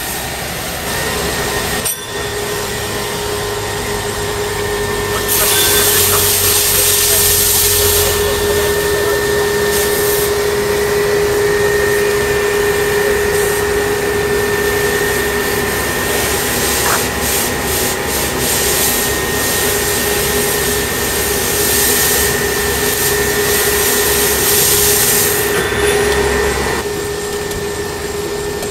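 A fire hose spraying water and foam, a rushing hiss that comes and goes from about five seconds in until near the end, over the steady whine of a fire engine's pump running.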